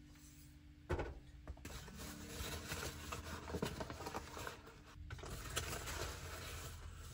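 A paper flour bag crinkling and rustling as it is handled and its rolled top opened, in two spells with a short break about five seconds in. A sharp knock about a second in is the loudest moment.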